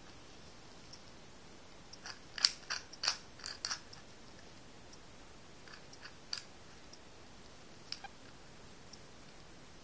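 Small sharp clicks of a Master combination padlock being worked with a shim: a quick cluster of clicks about two to four seconds in, then a few single clicks later on.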